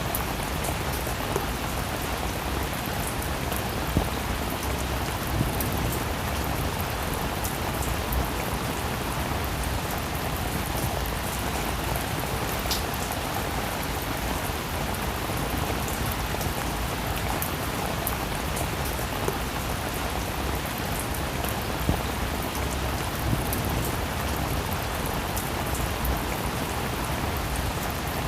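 Steady rain falling, with many small drops ticking on a surface and now and then a slightly louder drop.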